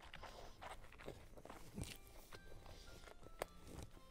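Faint, close-up chewing of a mouthful of fried rice noodles, with soft irregular wet clicks and smacks from the mouth.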